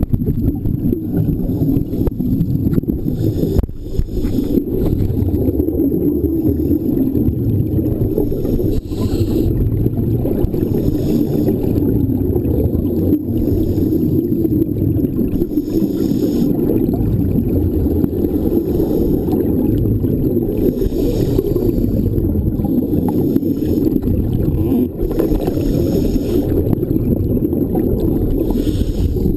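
Muffled underwater sound on a scuba dive: a steady low rumble, with the hiss of exhaled regulator bubbles coming back every five seconds or so.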